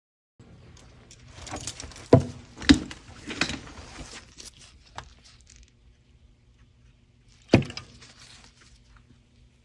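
Rustling handling noise of objects being moved on a tabletop, with sharp knocks: two close together about two seconds in and another loud one later on.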